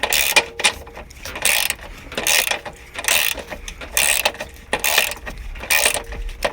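Hand ratchet wrench clicking in short repeated strokes, roughly one or two a second, working a bolt on a car's shock assembly.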